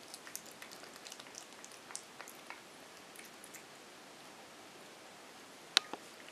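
Shih-tzu puppy eating softened kibble from a bowl: small irregular clicks and crunches of chewing and of kibble against the bowl, thinning out after about three and a half seconds, with one sharp click near the end.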